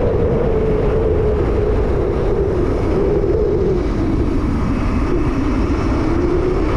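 Electric motorbike running on its 5000 W brushless motor kit, a steady whine that wavers in pitch, dipping lower about halfway through and climbing again as speed changes, over a low rumble of wind and tyres.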